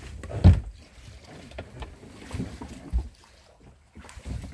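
Dull thumps and knocks on a small boat's hull as people step along it and climb off onto a mud bank. The loudest comes about half a second in, with another near three seconds.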